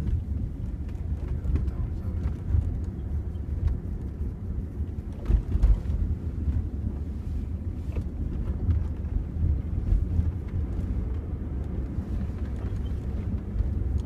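Low rumble of a car on the move, road and engine noise heard from inside the cabin, with a few light knocks about five seconds in.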